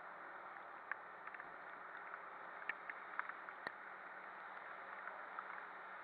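Steady hiss of a Suzuki Address 110 scooter riding on a rain-soaked road in a downpour, tyres running through surface water, with scattered sharp ticks of raindrops striking the camera.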